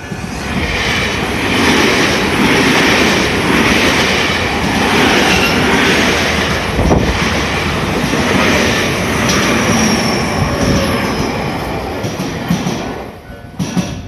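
Tobu Tojo Line electric commuter train passing close through a level crossing, wheels clattering over the rail joints, with a thin high wheel squeal about two-thirds of the way through; the train noise eases near the end. The level-crossing warning bell rings on under it.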